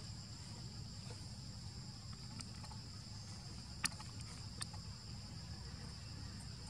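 Steady high-pitched insect chorus over a low outdoor rumble, with two sharp clicks about four seconds in, roughly half a second apart.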